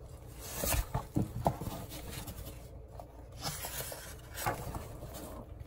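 Paper picture-book page being handled and turned by hand: soft rustling and sliding of the page, in a few separate swishes.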